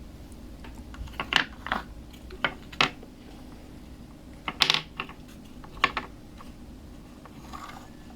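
A scattered series of sharp clicks and taps, in small clusters, from small dollhouse toy pieces being handled, fitted and set down.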